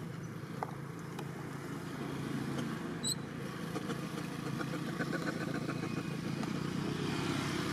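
A motor vehicle's engine running steadily on the road, a low hum that grows louder about two seconds in.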